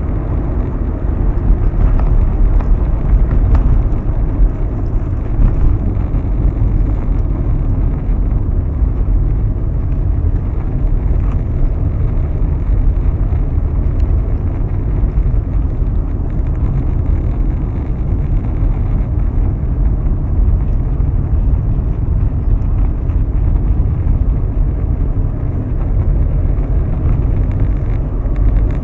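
Steady deep rumble of a car driving at highway speed, heard from inside the cabin: tyre, road and engine noise blended together.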